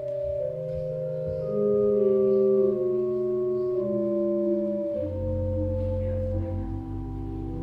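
Organ playing slow, held chords that change every second or two, with a deep bass note coming in about five seconds in.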